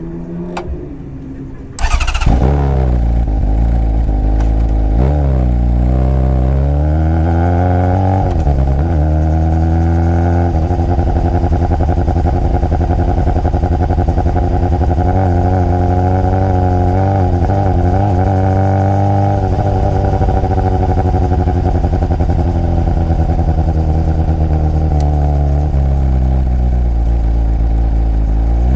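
Honda CBR600RR inline-four motorcycle engine firing up about two seconds in. It is blipped a few times with the pitch swinging up and down, then settles into a steady idle.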